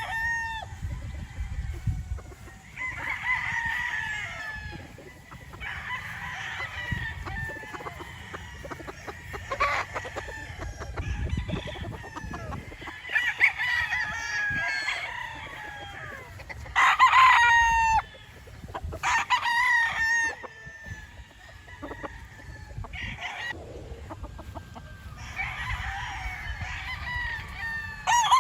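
Roosters crowing over and over, a drawn-out cock-a-doodle-doo every few seconds from more than one bird. The loudest crow comes about two-thirds of the way through.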